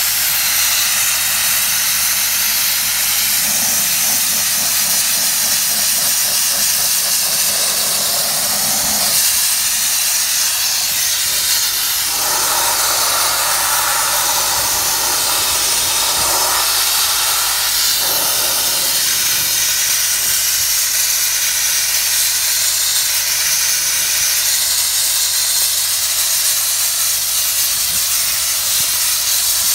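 Abrasive sandblasting nozzle driven by compressed air, blasting the steel boom of a backhoe loader: a loud, steady hiss. It turns rougher and lower for a few seconds around the middle.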